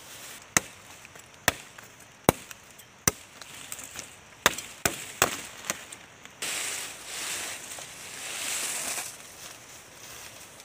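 A knife chopping into a green palm frond's stem: about eight sharp strokes, the first four roughly a second apart and the rest quicker. From about six seconds in, a long rustle follows as a large palm frond is handled and carried through dry leaves.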